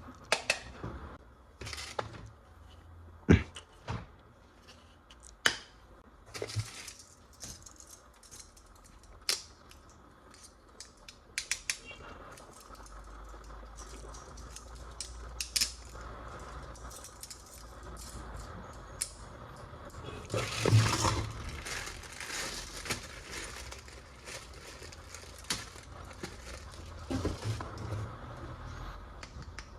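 Hard plastic toy parts being handled: scattered sharp clicks and snaps, with a longer rustling, crinkling stretch about two-thirds of the way through.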